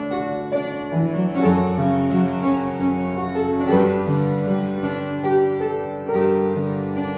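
Upright piano playing the introduction to a gospel praise song: held chords with a melody line over them, new notes struck about every half second to a second.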